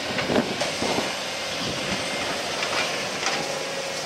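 Hybrid Cosmo 2000 demolition excavator running on its crawler tracks, a steady mechanical rumble with light metallic clanking.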